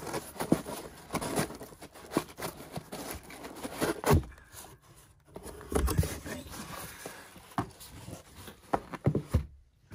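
White corrugated cardboard mailer box being handled and opened by hand: irregular scraping, rubbing and tapping of cardboard, with a louder thump about four seconds in and again about two seconds later.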